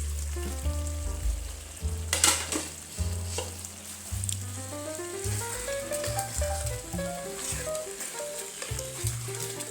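Background music with a stepping bass line and a melody that climbs in a run of rising notes partway through. Under it runs a steady high hiss with scattered crackles, like food sizzling in a pan, and a short sharp rustle about two seconds in.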